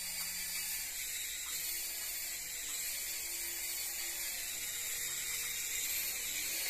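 Small remote-control toy helicopter in flight: its electric motor and rotor blades whirring with a steady, high-pitched whine.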